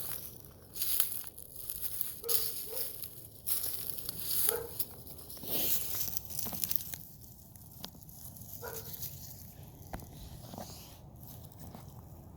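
Footsteps crunching on a dry trail, a step about every half second to a second, fading to quieter shuffling in the second half.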